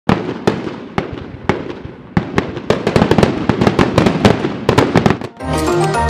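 A run of sharp bangs, each with a short ringing tail, about two a second at first, quickening into dense crackling. Music with a steady melody starts about five and a half seconds in.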